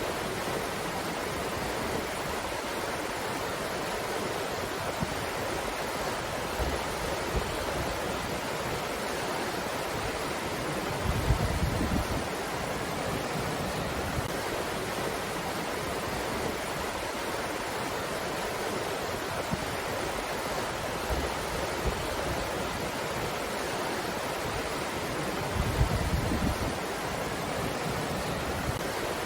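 Steady rushing of a breeze, an even hiss-like noise. Twice, about eleven and twenty-six seconds in, a brief low rumble rises out of it.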